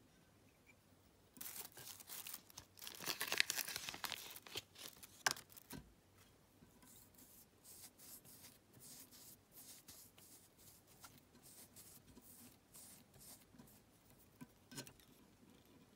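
Pink dubbing being pulled apart by hand for fly tying: a few seconds of crinkly tearing and rustling, then fainter scattered rustles as it is worked onto the tying thread, with a small click near the end.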